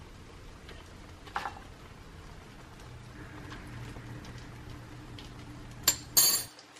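Ceramic dishware clinking on a kitchen counter: a light clink about a second and a half in, then two sharp, ringing clinks near the end, over a low steady hum.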